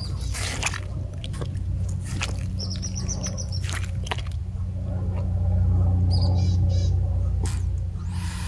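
Sulcata tortoise biting into and chewing wet watermelon flesh: irregular crisp crunches and wet squelches, over a steady low hum.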